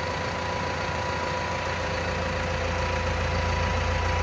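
Claas tractor's diesel engine idling steadily: a low hum with a thin steady whine over it.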